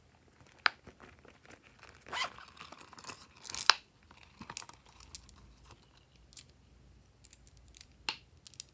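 Hands opening a silicone zip coin purse and tipping small plastic charms out of it: scattered sharp clicks and taps, with a denser rasping stretch from about two seconds in that ends in a loud click. A few more light clicks near the end as the charms are set down.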